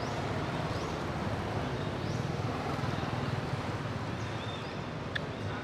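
Steady outdoor background noise with a continuous low rumble, like distant engine traffic, and a few faint high chirps. A single sharp click near the end.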